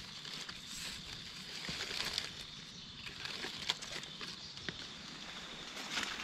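Irregular crackling and snapping of dry leaves and twigs underfoot as someone walks through forest leaf litter, with a steady high-pitched hiss behind it.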